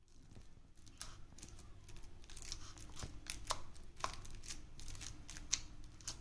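Fork mashing peeled ripe bananas on a paper plate: soft, irregular clicks and scrapes as the tines press through the fruit.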